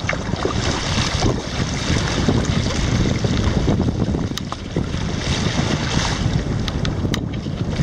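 Wind buffeting the microphone over water sloshing around a kayak, with a couple of sharp ticks.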